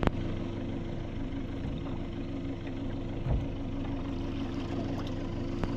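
A 115 hp outboard motor idling steadily, with one sharp click right at the start.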